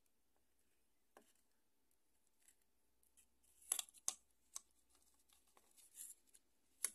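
Handling noise from the plastic housing of a car's cooling-fan resistor module: a few sharp plastic clicks and short scrapes, the loudest about four seconds in and again just before the end.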